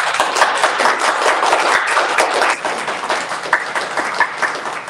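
Applause: many hands clapping in a dense patter, starting suddenly and easing off slightly after a couple of seconds.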